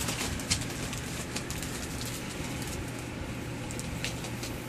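Pembroke Welsh Corgi puppies' paws and claws scrabbling over newspaper: scattered light clicks and paper rustles, over a steady low hum.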